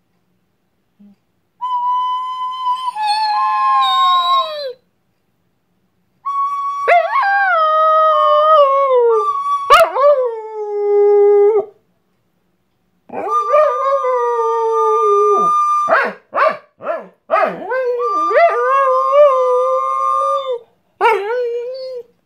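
A Borador (Border Collie–Labrador cross) howling along to a recorder. The recorder holds steady notes while the dog's long howls slide down in pitch beneath them, in several long stretches with short silent gaps between.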